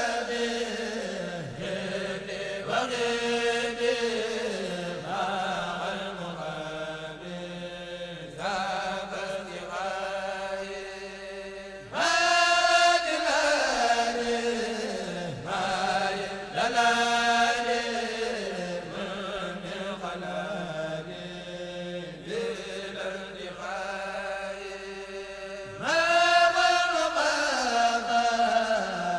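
A solo voice chanting in long, drawn-out phrases, each sliding down in pitch at its end; louder phrases start about twelve seconds in and again near the end.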